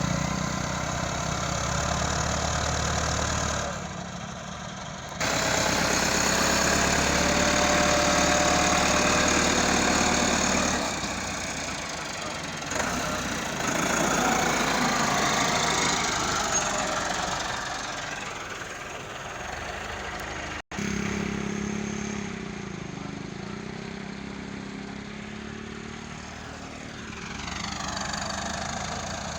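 Engines of road-construction machinery running and idling, their pitch and loudness shifting as the machines work. Partway through, the sound cuts off abruptly and a different engine sound takes over.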